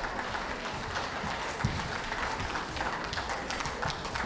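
Audience applauding steadily, many hands clapping, with one louder thump about a second and a half in.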